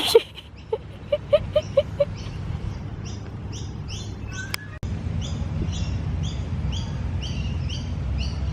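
A duck quacking in a quick run of about six short calls, then a small bird repeating a high chirp two or three times a second.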